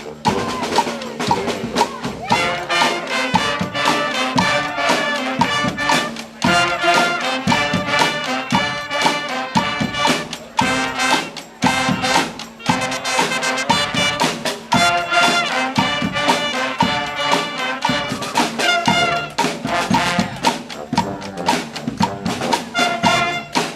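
A brass and percussion street band playing: several horns together over a steady drum beat.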